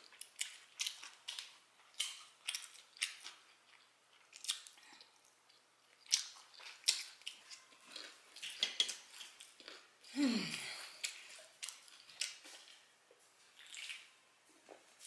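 A person chewing and smacking their lips on ribs and fried chicken close to the microphone: a run of wet clicks, several a second. A brief low voiced sound comes about ten seconds in.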